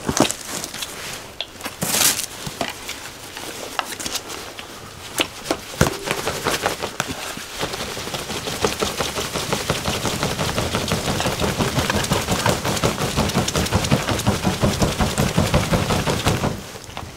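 A charcoal fire that would not catch being fanned hard: rapid, rhythmic flapping with crackling, building up from about six seconds in and stopping suddenly near the end. A few sharp knocks come in the first seconds.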